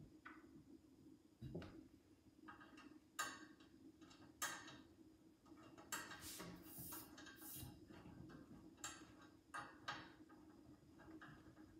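Faint scattered clicks, taps and short rattles of the metal and plastic parts of a Rockymounts Tomahawk roof bike rack being handled and fitted by hand, with a quicker run of them about six seconds in, over a faint steady low hum.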